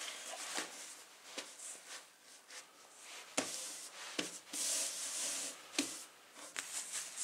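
A sheet of suede leather handled and smoothed flat over a wooden block with bare hands: soft rustling and rubbing, with a few sharp light knocks against the wood.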